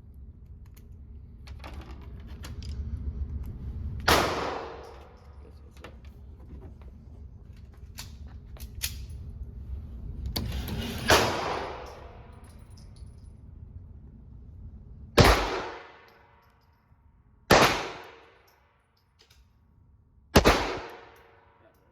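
Five single shots from a Walther PPK/S .22 LR pistol firing CCI Mini-Mag rounds, each a sharp crack with a short echo. The first two come about seven seconds apart; the last three follow within about five seconds. A low rumble runs under the first two shots and stops before the third.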